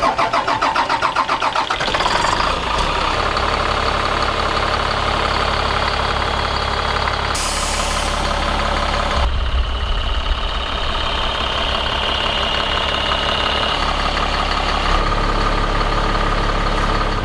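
Bus engine being started: the starter cranks with a pulsing rhythm for about two seconds, then the engine catches and settles into a steady idle.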